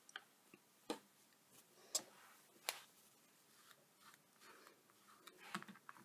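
A few faint, light clicks and taps of hands handling a Misti stamping platform and clear photopolymer stamp, three of them about a second apart, over near silence.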